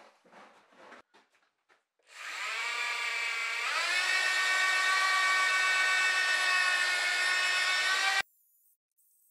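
Electric drill with a paddle mixer stirring a bucket of thick plaster mix. The motor whines up about two seconds in, rises in pitch again a little later, runs steady, and cuts off suddenly near the end.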